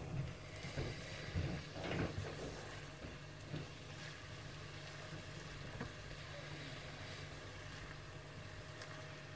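Spatula stirring and scraping boiled rice around a pan, with a few soft scrapes in the first three seconds or so and one more about six seconds in, over a steady low hum.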